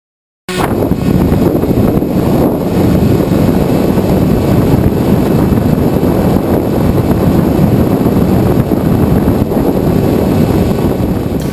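Wind rushing and buffeting over the onboard HD HERO camera of a Beta 1400 RC glider in flight, a loud steady rumble that starts abruptly about half a second in.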